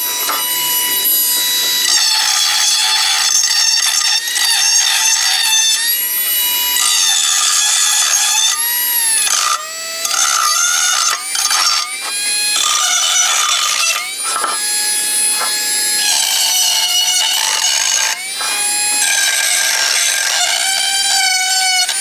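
Metal tool scraping old gasket material out of the deep sealing groove of an engine oil pan, the scraping squealing in high tones that slide up and down, with brief pauses between strokes.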